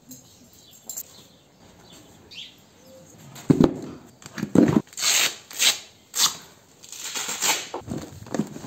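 A plastic storage tub being handled and horse gear packed into it. About three and a half seconds in come two knocks, about a second apart, then a run of rustling and scraping as fabric pads and boots are pushed in.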